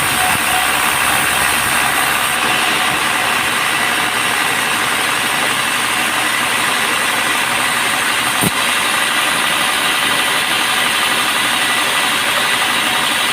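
Bandsaw sawmill running steadily with a loud, even machine noise, and one sharp knock about eight and a half seconds in.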